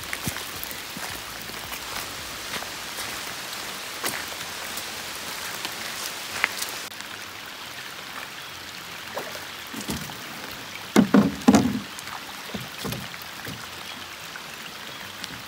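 Pouring rain, a steady hiss, with a few sharp knocks about eleven seconds in that are the loudest sounds.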